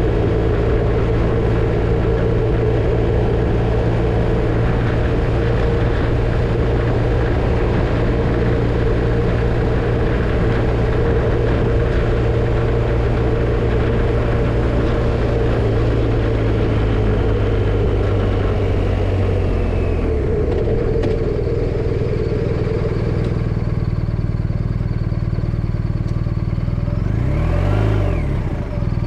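BMW R1250RT motorcycle's boxer-twin engine running at a steady cruise, heard from on the bike with rushing wind noise. About two-thirds of the way through, the engine and wind drop to a lower, quieter pitch. Near the end the revs rise and fall twice.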